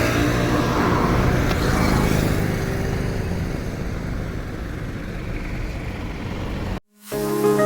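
Road traffic: a steady rush of passing vehicles' engines and tyres that eases off a little, then cuts off abruptly near the end as music begins.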